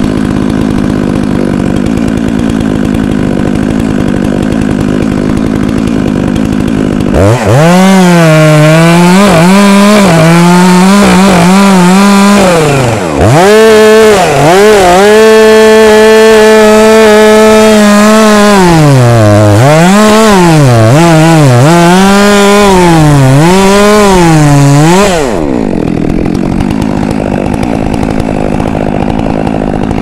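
Two-stroke chainsaw idling, then revved up to full speed about seven seconds in and cutting through a ginkgo trunk, its pitch sagging and recovering under the load of the cut. It drops back to idle near the end.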